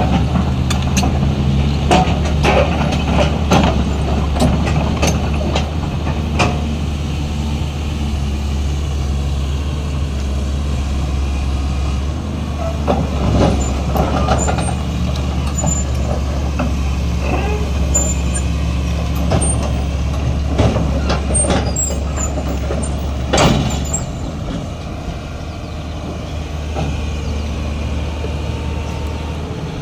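SANY crawler excavator's diesel engine running steadily as the machine tracks up steel ramps onto a lowboy trailer, with repeated clanks and knocks of the steel tracks on the ramps, the loudest about 23 seconds in. The engine drops to a lower, quieter note soon after, once the excavator is on the deck.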